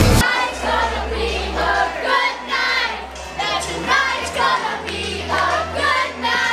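Loud rock music cuts off a fraction of a second in. Several voices then sing along together to a song with a steady bass line playing over a sound system.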